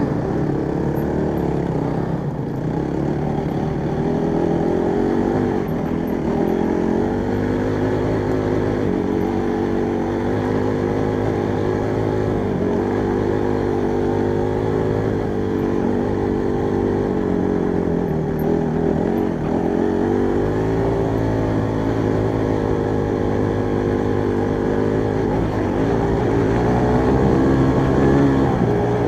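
Honda CRF trail bike's single-cylinder four-stroke engine running as it is ridden over a rough stony track, its revs rising and falling with the throttle, with dips around two seconds in, near the middle and again about two-thirds of the way through.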